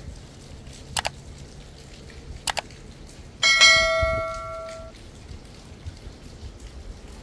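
Two quick double clicks like a computer mouse, about a second and a half apart, then a bright bell ding that rings and fades over about a second and a half: the sound effect of a subscribe-and-notification-bell animation.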